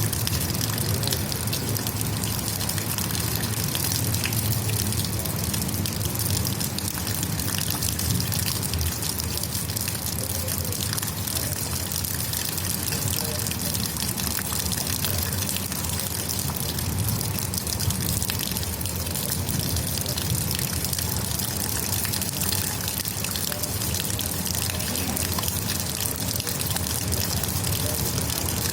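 Rainwater trickling and splashing: a steady, even rush dense with small drop ticks.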